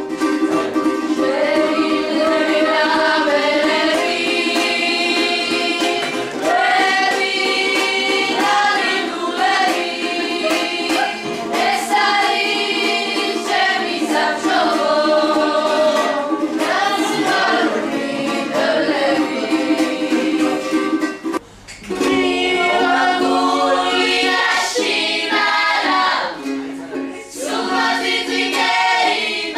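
Several voices singing a song over a strummed string accompaniment, with a brief break in the music about 21 seconds in.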